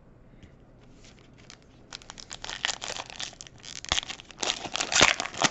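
A foil Panini Mosaic trading-card pack being torn open and crinkled by hand. It starts about two seconds in and gets louder toward the end.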